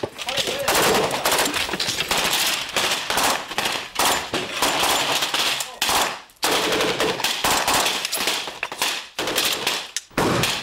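FAMAS assault rifles firing: rapid strings of shots in quick succession, broken by a few short pauses.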